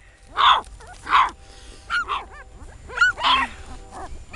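Several young puppies whimpering, with short, high-pitched cries that rise and fall, several times over.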